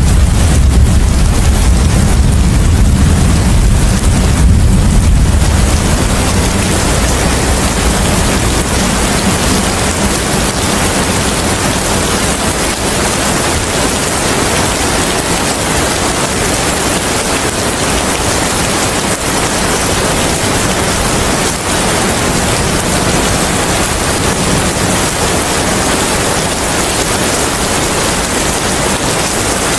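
Steady, loud rain hissing evenly. A deep rumble of thunder underlies it for the first several seconds and dies away about six seconds in, leaving the rain alone.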